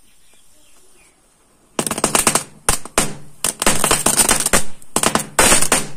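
A packet of small Diwali firecrackers going off, lit by the burning matchstick line: dense rapid cracking starts about two seconds in and comes in several loud bursts with short gaps.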